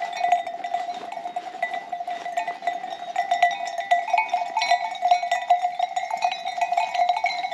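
Many bells on a grazing flock of goats clanking and jingling without a break, in dense overlapping strikes.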